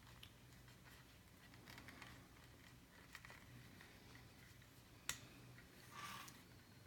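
Near silence: room tone with a few faint ticks and rustles, and one sharper small click about five seconds in.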